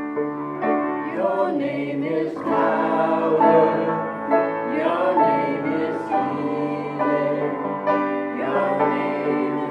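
Worship song with piano accompaniment and singing voices holding long, wavering notes over the chords.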